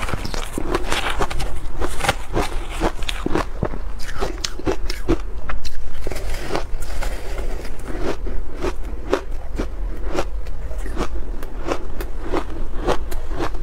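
Ice chunks coated in matcha powder being bitten and crunched between the teeth: a rapid, irregular run of sharp crunches, with a louder burst about six seconds in.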